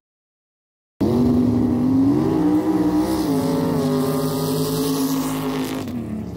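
Dune buggy engine running hard at high revs, starting abruptly about a second in; its pitch climbs, drops back and then holds steady, over a rushing hiss.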